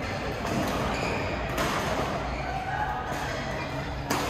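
Badminton rally: a few sharp racket strikes on the shuttlecock, echoing in a large sports hall over background murmur.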